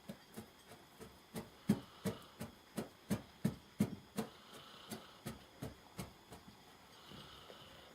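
A sleeping Labrador retriever snoring in short, rhythmic puffs, about three a second, louder in the middle and fading near the end.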